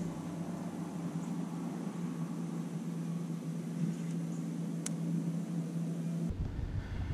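Bass boat's bow-mounted electric trolling motor running with a steady hum, with a single sharp click about five seconds in.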